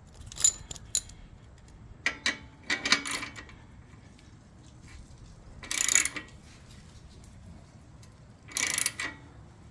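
Ratchet wrench clicking in short bursts, tightening the clamp of a slip-on exhaust muffler on a motorcycle, with a few scattered metal clicks between, the longest bursts about 6 and 9 seconds in.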